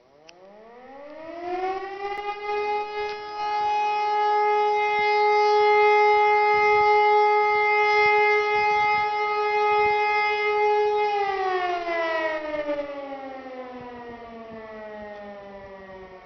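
E57 electric motor siren spinning up with a rising pitch over about four seconds, holding a steady tone, then winding down with a falling pitch from about eleven seconds in. This is the first tone of the German 'Feueralarm' fire-alarm signal during a siren test.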